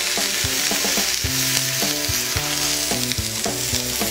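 Portobello mushrooms topped with panela cheese sizzling in a hot grill pan on a gas stove, a steady frying hiss.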